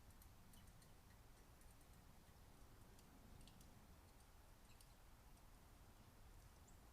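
Near silence: faint background hum with scattered faint, short, high ticks and clicks.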